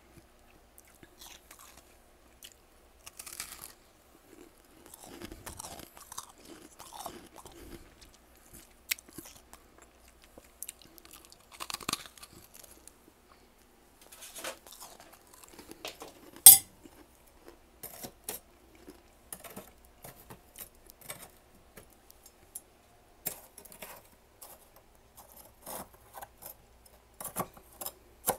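Freezer frost being chewed close to the microphone: irregular crisp crunches with short pauses, and one sharp, much louder crack about halfway through.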